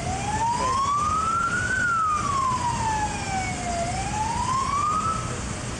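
Police escort car's siren wailing, its pitch gliding slowly up and down, about two seconds each way, over the steady rumble of passing cars.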